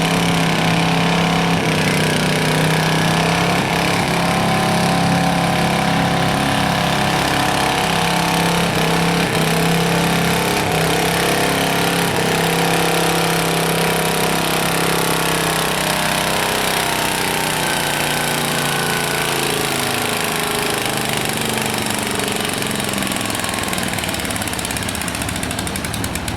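Cub Cadet garden tractor engine running hard and steady under load while pulling the weight sled. It gets a little quieter in the later part.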